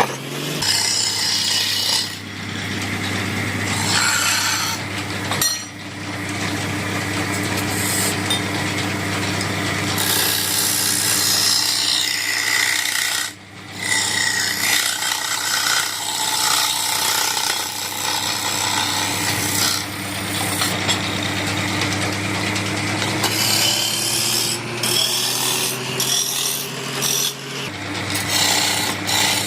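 Wood lathe motor running steadily while a cutting tool scrapes and shaves a spinning wooden cup blank, with the scraping rising and falling as the tool is worked and a brief lull about halfway through.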